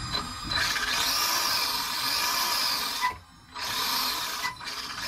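A small electric motor whirring in three runs that start and stop abruptly: a long one of about two and a half seconds, then two shorter ones.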